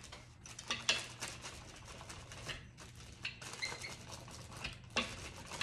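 Clear plastic sheet over decoupage paper crinkling and rustling as a rubber brayer is rolled across it, pressing the paper down onto the board, with a few sharp clicks.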